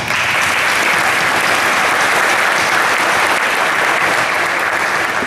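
Audience applauding, a dense, steady clapping that dies down near the end.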